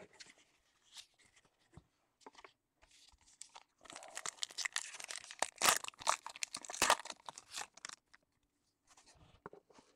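Foil trading-card pack wrapper being torn open and crinkled by hand: a few faint crinkles, then about four seconds of dense crackling tearing.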